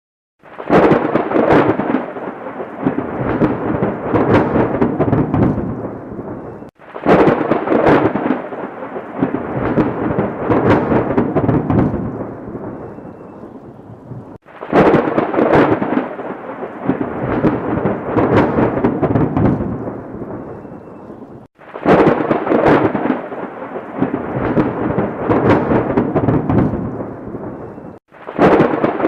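Thunder: a sharp crack breaks into crackling and a rumble that slowly fades. It starts over about every seven seconds, five times, each time cutting in suddenly.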